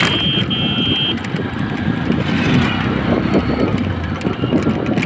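Street traffic and road noise heard from a moving rickshaw: a steady rumble of vehicles and wheels on the road. In the first second a high-pitched tone beeps twice.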